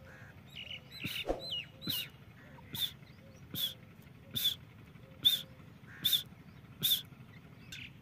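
Female grey francolin (desi teetar) calling from a cage: a series of short, sharp calls repeated evenly, about one every 0.8 seconds, the first couple with a downward hook in pitch.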